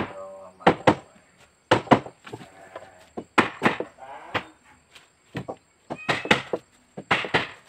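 Hammering on the wooden planking of a boat hull under construction: about a dozen sharp knocks, often in close pairs, driving a plank into place.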